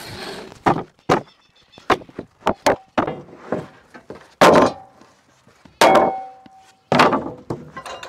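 Freshly sawn 1x8 boards knocking and thudding against one another and the steel bed of a Wood-Mizer LT15 sawmill as they are lifted and shifted off the mill, about a dozen separate sharp knocks. One knock, about six seconds in, leaves a short ringing tone.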